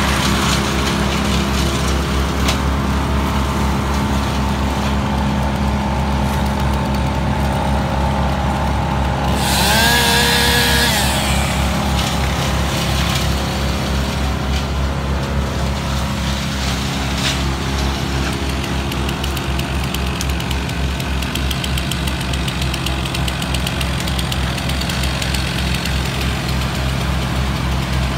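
Engine of a Vermeer compact tracked loader (stand-on mini skid steer) running steadily, with a brief higher-pitched rising rev about ten seconds in.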